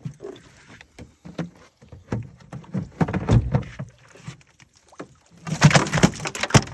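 Irregular knocks and low thumps with water sounds, as from handling gear in a small boat, turning into a quick, busy clatter near the end.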